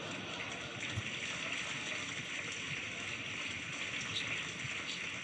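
An audience applauding: a steady, even wash of clapping noise after a joke.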